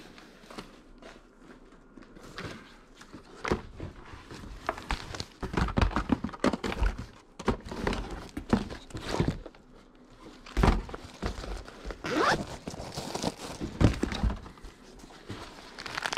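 Rummaging through boxes of household belongings: irregular knocks and thunks of objects being picked up, moved and set down, with some crinkling of packing.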